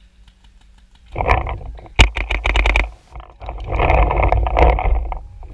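A quick string of sharp paintball pops, about seven in under a second, begins about two seconds in. Loud rustling and scraping of the player's movement comes before and after them.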